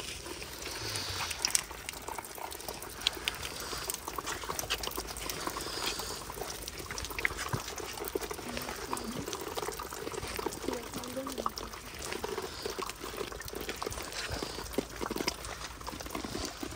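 Water pouring and splashing onto stone paving at a spout that serves for ritual bathing, with many small clicks and splashes throughout.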